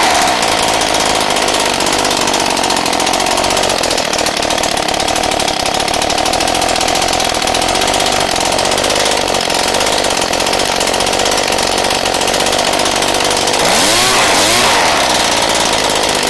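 Ryobi RY08574 backpack blower's two-stroke engine running loud at idle with its muffler removed; about a second from the end it revs up briefly and drops back. It will idle only with the muffler off, which the owner takes for a clogged muffler.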